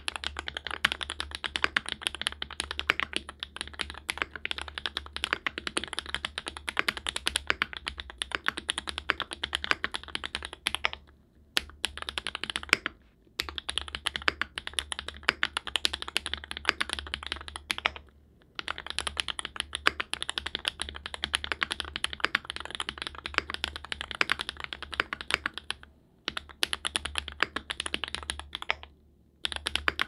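Continuous fast typing on a mechanical keyboard fitted with SW X Gateron Deepping 4.0mm switches: a rapid patter of keystroke clacks, broken by a few brief pauses.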